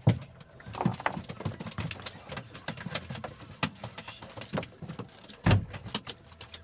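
Irregular knocks and clatter on a boat, with one heavy thump about five and a half seconds in.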